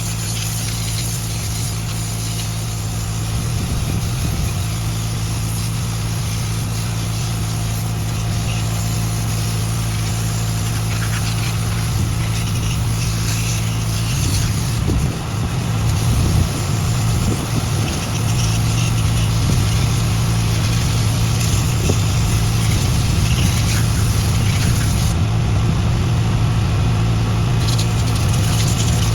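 Heavy-equipment diesel engine idling steadily, with a brief unsteadiness about halfway through.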